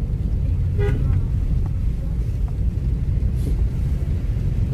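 Car driving on a wet road, heard from inside the cabin: a steady low rumble of engine and tyres. A brief toot sounds about a second in.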